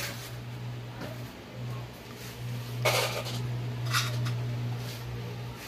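A steady low hum with two sharp clattering knocks, the louder one about three seconds in and a shorter one about four seconds in.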